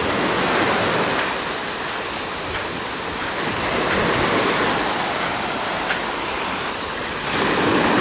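Small sea waves breaking and washing up a sandy shore, the surf swelling and easing, with a louder wash near the end.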